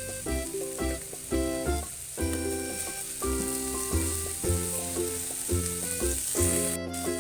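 Food sizzling in hot frying oil, under background music. The sizzle cuts out briefly near the end.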